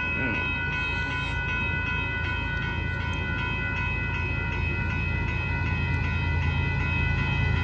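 Railroad grade-crossing bell ringing steadily, about two strikes a second, over the low rumble of an approaching CSX freight train that slowly grows louder.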